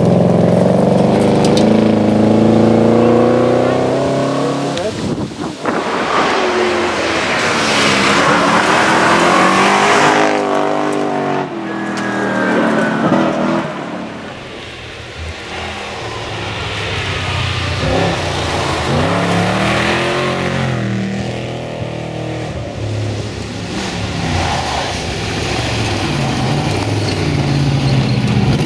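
Several Ford V8 rally cars driving hard on gravel, one after another: the V8s rev up and fall back again and again through gear changes as each car passes, with a rushing noise of tyres on gravel.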